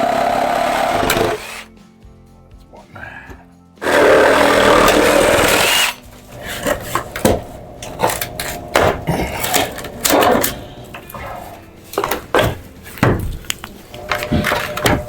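Power saw cutting through the old wooden stair treads in two runs, stopping about a second in and starting again about four seconds in, then a stretch of irregular knocks and clatter, with music underneath.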